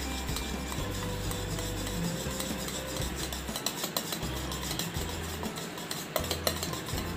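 A wire whisk beating flour into a milk mixture in a bowl to make a batter: a steady stirring and scraping, with a few sharper clicks of the whisk near the end.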